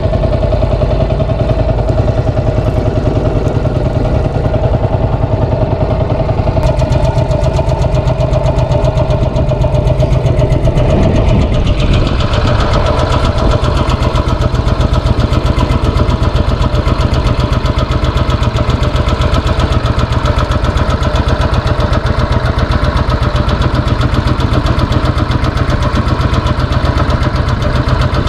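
Small fishing boat's engine running steadily at trolling speed. About eleven seconds in its pitch shifts, and after that it runs a little harder.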